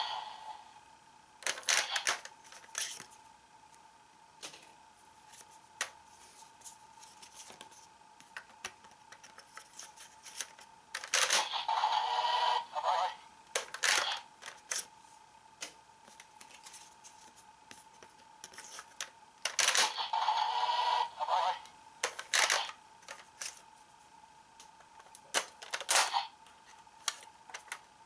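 Plastic clicks and snaps from a Kamen Rider Ryuki Dragvisor toy gauntlet as its dragon head is flipped open and cards are handled and loaded, with two electronic sound effects from the toy, each about two seconds long, about 11 and 20 seconds in. A faint steady tone runs underneath.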